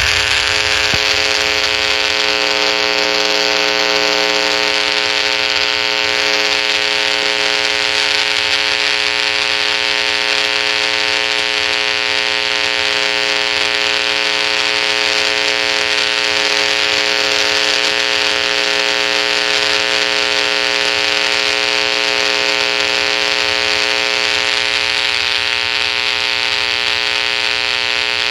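Electrical buzzing: a steady, harsh buzz held at one pitch without change.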